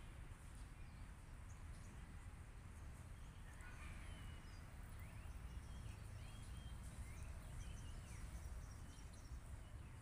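Faint outdoor ambience: a low steady rumble, with faint short bird chirps starting about four seconds in.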